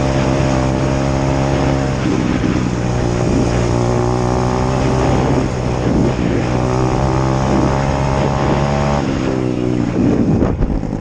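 Dirt bike engine running at a steady pitch, its note shifting in steps a few times, then falling away and giving way to noisier sound with a few sharp knocks near the end.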